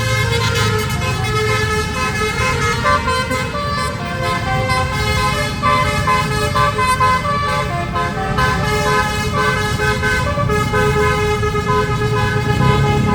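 Bus 'telolet' multi-tone horn playing a tune, its notes changing step by step, over the bus's running engine.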